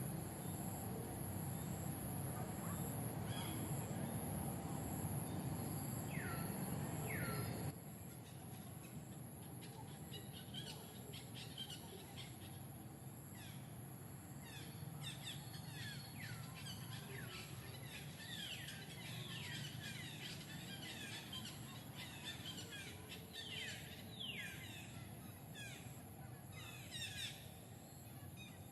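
Birds chirping, many short high calls each sliding downward, coming thick and fast through the second part. A steady low hum under them for the first eight seconds cuts off abruptly.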